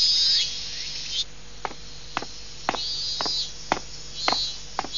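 High chirping in short runs. From about a second and a half in, footsteps come steadily at about two a second.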